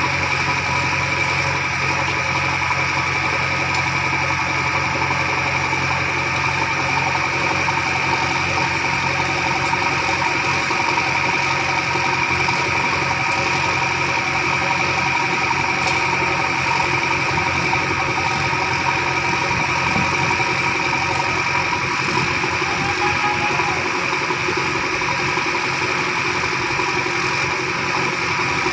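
Diesel engine of a JCB 3DX backhoe loader running steadily under working load while its backhoe digs, with a steady high whine over the engine note throughout.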